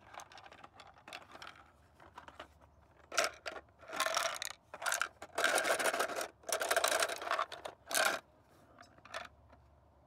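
3D-printed plastic puzzle box handled and turned over in the hands: a run of irregular scraping and rattling of its printed parts, densest and loudest around the middle.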